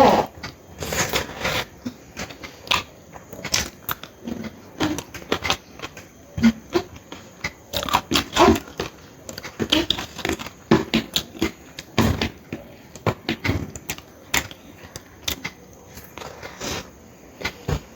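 A person eating: irregular chewing, smacking and crunching mouth sounds, with scattered short clicks throughout.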